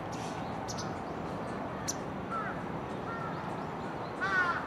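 Bird calls over a steady background hiss: a couple of short calls about two seconds in, and a louder quick run of calls near the end.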